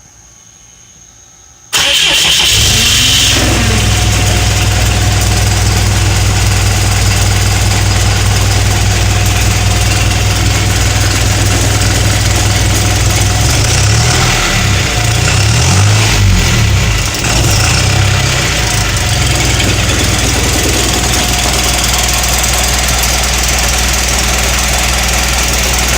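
Cummins ISB diesel engine starting up under two seconds in, then idling roughly. The idle goes uneven for a few seconds around the middle. The rough idle persists even after a new fuel control actuator and fuel rail pressure valve.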